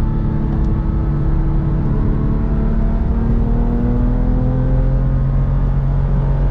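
Porsche 996 GT3's 3.6-litre flat-six heard from inside the cabin, pulling in a gear with its pitch rising slowly from about two seconds in, over a low rumble of tyre and road noise. The engine is running on after its crank pulley has snapped.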